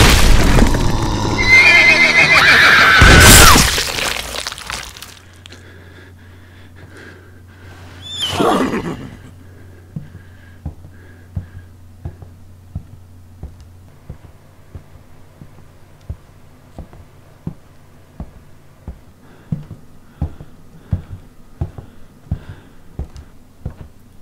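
A loud, shrill, wavering cry lasting about four seconds and falling in pitch, then a shorter falling cry about eight seconds in. After that comes a low steady hum with soft ticks about one and a half times a second.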